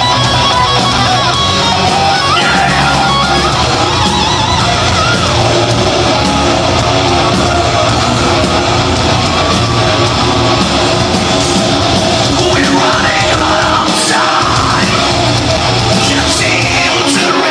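Live heavy metal band playing: distorted electric guitars, bass and drums, loud and continuous, with some shouted vocals.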